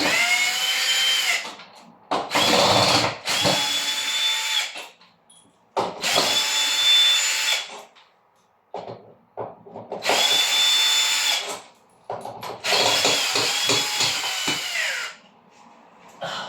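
Cordless drill-driver running in several short runs of one to three seconds, its motor whine rising as each run starts and falling as it stops, while backing out the screws that hold a door closer to a door.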